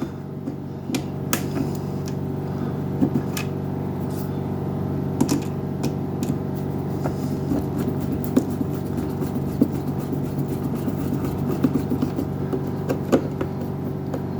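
Steady machine-like hum throughout, with scattered light clicks and taps of a hand screwdriver and plastic parts as a screw is driven back into the Keurig coffee maker's plastic housing.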